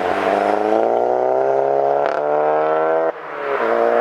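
Volkswagen Golf GTI mk7's 2.0 TSI engine through a turbo-back exhaust with its valves open, accelerating hard: the exhaust note climbs steadily in pitch. About three seconds in it drops out briefly for a gear change, then climbs again.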